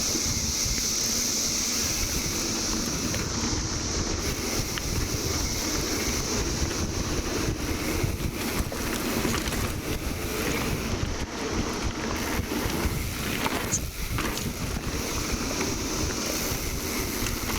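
Wind buffeting the microphone while mountain biking, a heavy rumble, over the steady high drone of a 17-year periodical cicada chorus.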